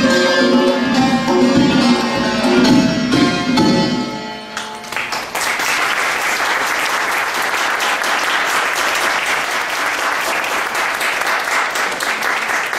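Santur and tombak duo in dastgah Segah playing the last notes of a piece, with struck strings ringing over hand-drum strokes; the music stops about four seconds in. Audience applause follows and continues.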